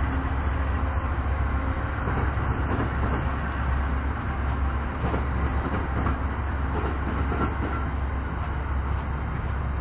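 Amtrak passenger train pulling out of a station: a steady low rumble of the moving train, with faint clicks of wheels passing over rail joints in the middle stretch.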